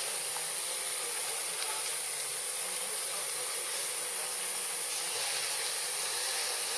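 Steady high-pitched drone of a cicada chorus, even and unbroken throughout.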